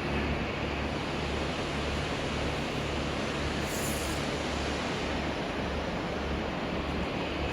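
Stainless steel corn milling machine running: a steady, dense mechanical noise over a low, evenly throbbing hum, with a brief high hiss about four seconds in.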